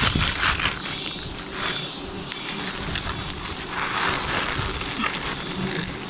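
An insect calling in regular high-pitched pulses, about four every three seconds, over the crinkling and rustling of a plastic bag being handled.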